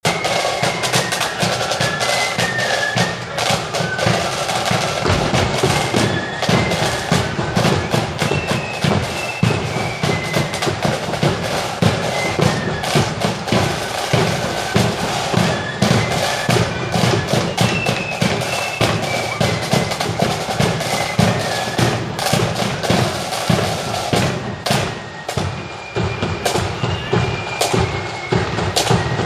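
Flute band on the march: a high, stepping flute melody over rattling snare drums and a steady bass drum beat.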